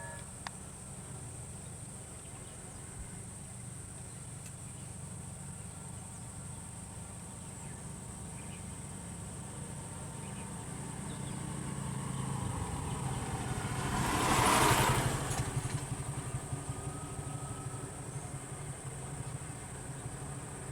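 A vehicle engine idling steadily, while another vehicle approaches, passes close by about two-thirds of the way through, and fades away.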